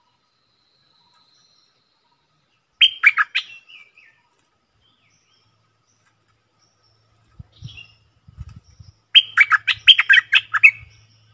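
Stripe-throated bulbul singing two short bursts of quick, bubbling notes, the first about three seconds in and a longer one near the end.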